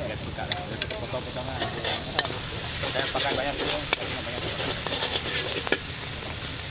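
Char kway teow noodles sizzling steadily in a wok as a metal spatula scrapes and turns them, with a few sharp clinks of the spatula striking the wok.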